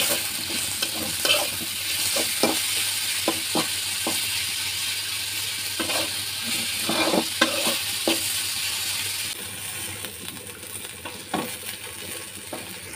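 Pointed gourd peels with onion, garlic and green chillies sizzling in hot oil in a wok, while a spatula stirs and scrapes against the pan in irregular strokes. The sizzle turns quieter about nine seconds in.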